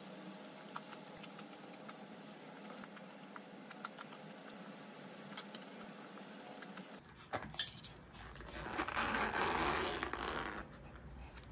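Faint light clinks of a metal spoon and chopsticks against a bowl and side dish. About halfway through, a sharp click as a plastic takeout-container lid comes loose, then a couple of seconds of plastic crinkling as the lid is peeled back.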